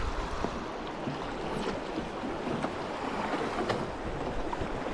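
Steady rush of river water around a drifting boat.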